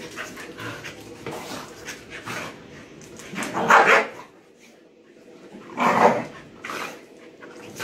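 Dogs play-fighting, a husky puppy and a larger dog wrestling, with scuffling throughout and two loud play barks about 3.5 and 6 seconds in.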